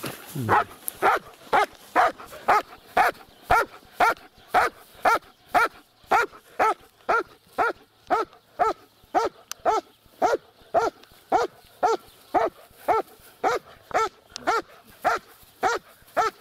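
A dog barking over and over at an even pace, about two barks a second, each bark short and of much the same pitch.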